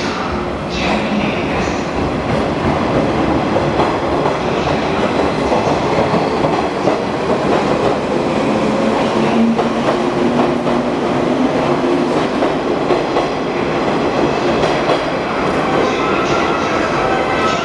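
JR 115 series electric multiple unit pulling out and passing close by: motors running steadily and wheels clicking over the rail joints.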